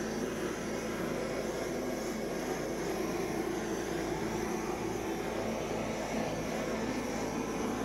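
Handheld blowtorch flame running with a steady rushing noise as it is passed over a wet acrylic pour, the heat popping air bubbles at the paint's surface.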